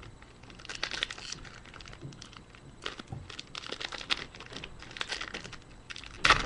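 A basketball trading-card pack being torn open and its cards handled: a run of quick crinkling, rustling and clicking, loudest near the end.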